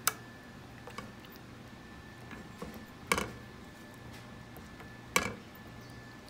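Silicone spatula knocking and scraping against a nonstick pan while it pushes melting butter around. There are three sharp knocks, near the start, about three seconds in and about five seconds in, with a few lighter taps between, over a faint steady hum.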